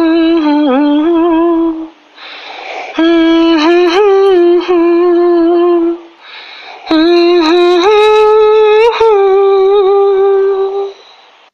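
A woman humming a slow melody in long held notes, three phrases with breaths taken between them.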